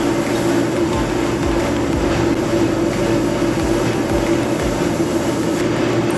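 A machine running steadily with a constant hum and an even rushing noise.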